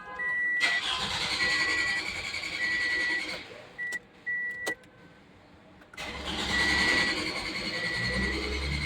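2015 Toyota's starter cranking the engine over twice, about three seconds each time, without it catching: a no-start. A dashboard warning chime beeps on and off throughout, with clicks between the attempts.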